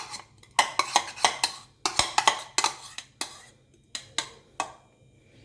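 A spoon clinking and tapping against a bowl in a quick, irregular run of sharp taps that thins out in the second half, as chopped onion is added to grated cheese.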